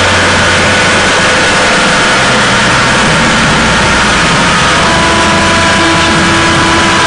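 Harsh noise drone music: a loud, unbroken wall of distorted noise with a few steady droning tones held under it. The tones shift to new pitches a little after five seconds in.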